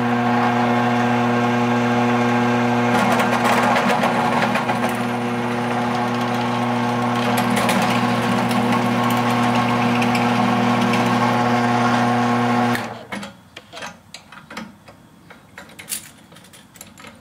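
Benchtop drill press running with a steady motor hum while a bit drills out the hole in a bracket clamped in the drill-press vise, with cutting oil on the work; the cutting adds rougher noise at times. The motor shuts off about three-quarters of the way through, followed by a few light clicks and taps of handling.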